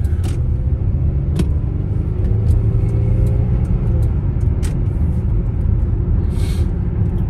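Car driving, its engine and road noise a steady low rumble inside the cabin, with a few faint clicks.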